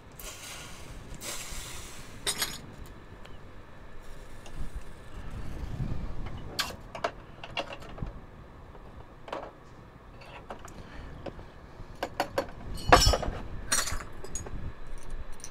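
A hand spray bottle hissing out a couple of short squirts, then scattered light metal clinks and taps of silverware pieces handled against a steel bench block, with one louder clank near the end.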